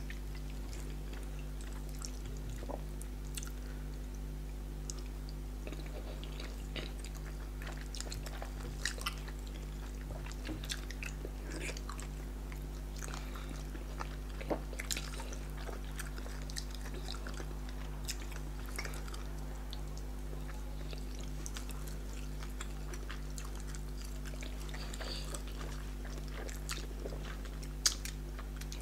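Close-miked eating sounds of people eating yam fufu and pepper soup with tilapia by hand: wet chewing, lip smacks and finger sucking as scattered small clicks, with a sharper smack just before the end. Under it runs a steady low hum.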